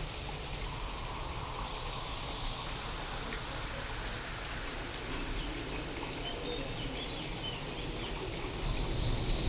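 Steady rain with a low rumble underneath. Near the end a roll of thunder starts to build and grows louder.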